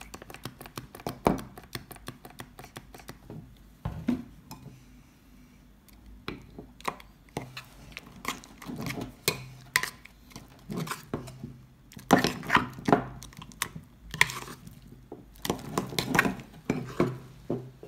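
A metal utensil stirring thick slime in a ceramic mug, clicking and scraping against the sides in quick irregular knocks as more liquid detergent activator is worked in. It goes quieter for a couple of seconds a few seconds in, then busier again.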